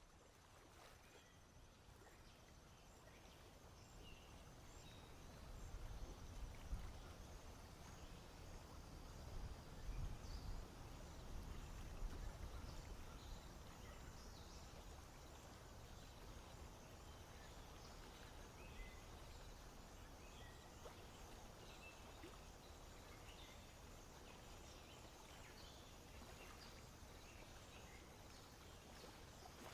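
Faint marsh ambience with scattered short bird chirps, and a low rumble that rises for several seconds from about five seconds in.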